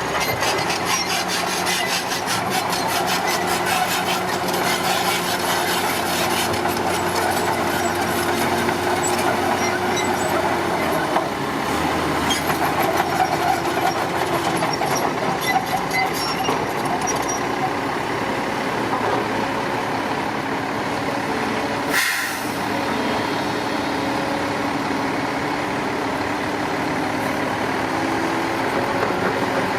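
Heavy diesel earthmoving machinery running steadily, its engine note shifting partway through, with a fast rattle in the first third. A single brief sharp noise stands out about two-thirds of the way through.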